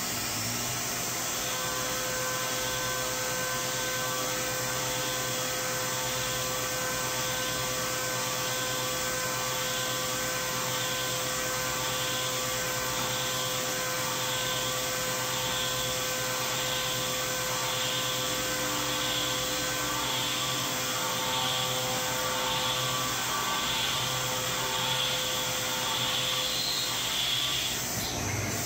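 SYIL X7 CNC mill spindle running at about 7,600 rpm with a 1/4-inch four-flute end mill helically boring a hole on a 2-degree ramp. There is a steady whine with several tones, and the cutting noise swells about once a second as the tool circles. The cutting stops near the end.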